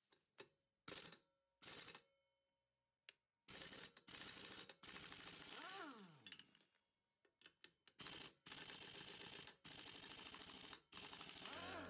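Cordless impact wrench undoing ATV wheel lug nuts: a few short bursts, then longer runs of hammering about a second each. After one run its motor is heard winding down in falling pitch.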